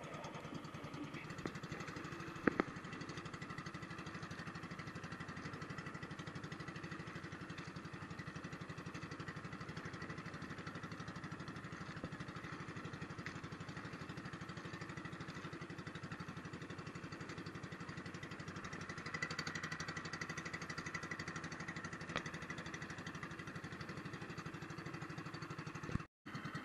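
Small outrigger boat's engine running steadily at trolling speed, an even chugging rhythm, with one sharp knock about two and a half seconds in.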